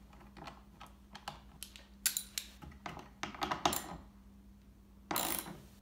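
Scattered light clicks and taps of bolts, nuts and a plastic LinQ bracket being handled and fitted onto a snowmobile fuel caddy by hand, with a louder half-second noise about five seconds in.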